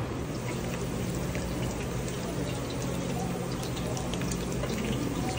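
Sliced almonds and pecans sizzling in oil in a steel frying pan, a steady hiss with many small pops, over a steady low hum.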